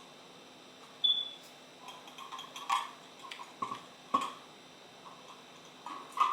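Scattered small clicks and light knocks, with a brief high ping about a second in and the loudest knocks near the end.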